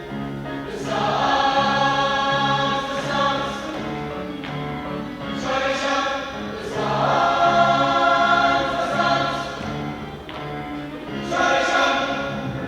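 High school choir singing with instrumental accompaniment, in held chords that swell loudest in three phrases, about one, six and eleven seconds in.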